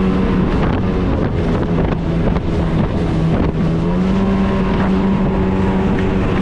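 Jet ski motor running steadily on the water, its hum dipping a little in pitch and rising again about four seconds in, with wind on the microphone.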